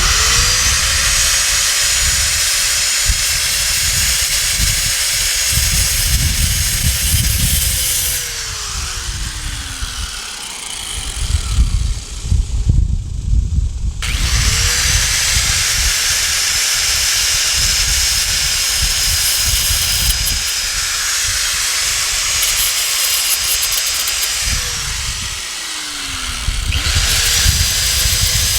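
Power tool motor running at a steady speed, winding down about ten seconds in, starting again around fifteen seconds, and winding down again near the end before starting once more. Wind buffets the microphone throughout.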